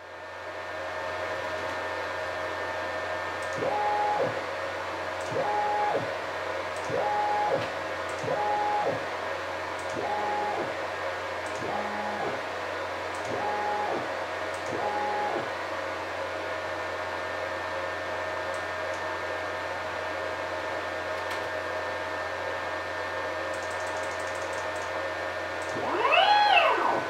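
NEMA 34 closed-loop stepper motor jogging in short moves, eight times about a second and a half apart. Each time its whine rises in pitch as it accelerates, holds, and falls as it stops. Near the end a faster jog sends the whine much higher before it falls again, over a steady whine that runs underneath.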